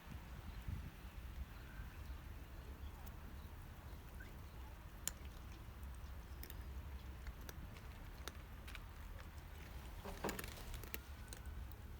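Wind rumbling on the microphone in a snowstorm, with scattered faint clicks and a brief rustling noise about ten seconds in.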